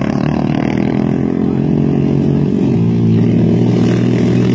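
Quad ATV engine racing at high revs, running loud and steady, with its pitch shifting about three seconds in.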